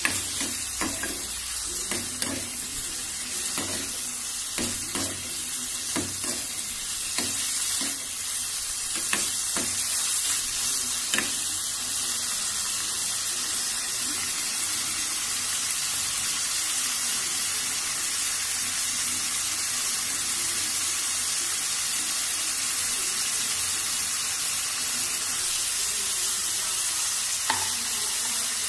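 Mutton kidney pieces sizzling in a metal frying pan, with a spoon stirring and clacking against the pan through roughly the first ten seconds. After that the sizzle runs on steadily, with one more clack near the end.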